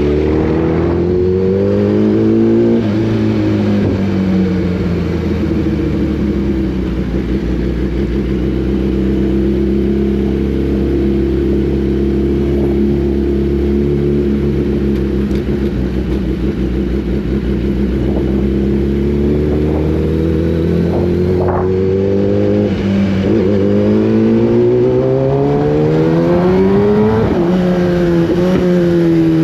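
Inline-four sport motorcycle engine under way, its note holding steady at cruise for long stretches, then climbing through the revs and dropping sharply at upshifts, twice in quick succession near the end.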